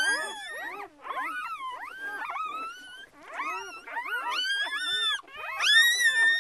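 A litter of day-old puppies crying and squealing: many overlapping high-pitched calls that rise and fall, with short lulls about one and three seconds in. Near the end one pup gives a long, loud, held cry.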